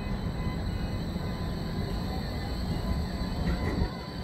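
Bombardier Flexity 2 light-rail tram pulling away along the platform, a steady low rumble of the tram running on its rails.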